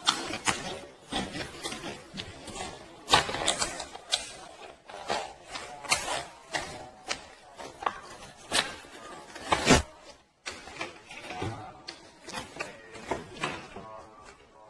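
A dog's mouth making wet clicking and smacking sounds, irregular, about two a second, with a sharper smack a few times.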